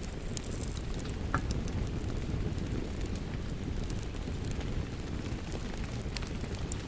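Fireplace crackling, with scattered sharp pops over a steady low rush of rain.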